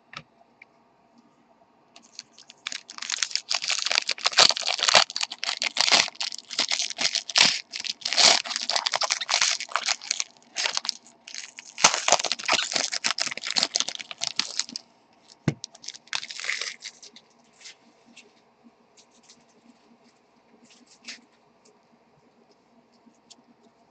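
Foil trading-card pack wrappers being torn open and crinkled. A dense run of crackling and tearing starts about two seconds in and lasts until about fifteen seconds, then there is a short burst and a few scattered crinkles.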